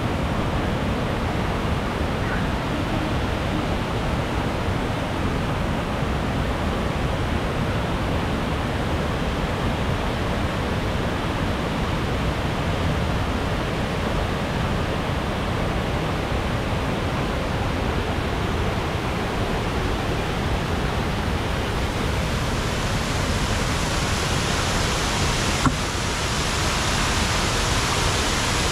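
Water rushing over a waterfall: a steady, even hiss of falling water that turns brighter about three quarters of the way through, with one short click near the end.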